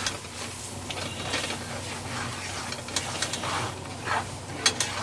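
A whisk scraping and clicking irregularly against a cast iron skillet as it stirs a thick butter-and-flour roux, over a faint sizzle from the cooking roux.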